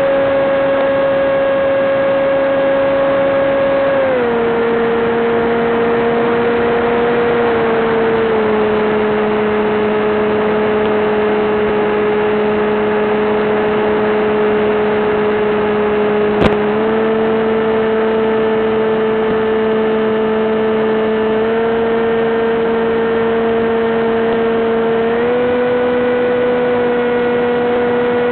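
Electric motor and propeller of a Teksumo flying wing whining steadily, its pitch stepping down twice and then back up in steps as the throttle changes. A single sharp click about sixteen seconds in.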